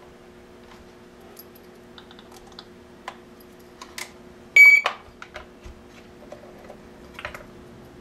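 Plastic clicks and taps from handling an AAS GSM cellular alarm control panel (2013 model), then a single short, high beep about halfway through as the panel powers back on after a restart.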